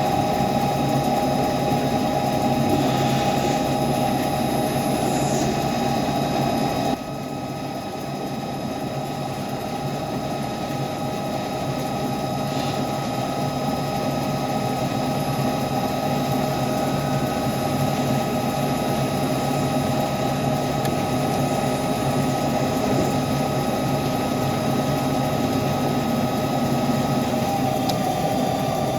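CNC lathe running during pinion machining: a steady machine hum with several held tones. About seven seconds in it drops abruptly in level, then slowly builds again.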